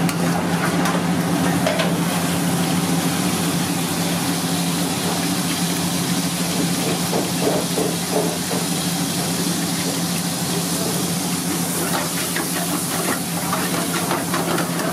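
Hot oil sizzling in a steel wok on a gas burner while a metal ladle stirs it and clinks against the pan, with the clinks coming more often in the last few seconds as chopped ingredients fry. A steady low hum runs underneath.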